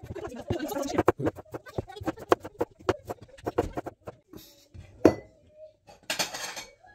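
Kitchen clatter: dishes and cutlery clinking and tapping in an irregular run of small knocks, with a brief rustle or scrape about six seconds in.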